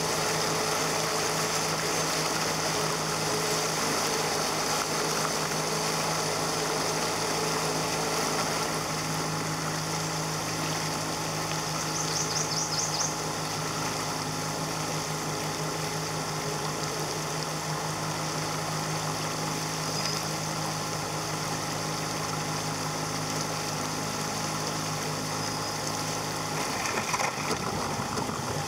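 Boat's outboard motor running steadily as the boat moves down a shallow river. Near the end the engine note changes and a few sudden louder sounds come.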